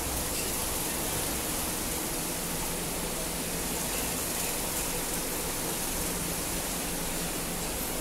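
Steady, even rushing noise with no distinct events.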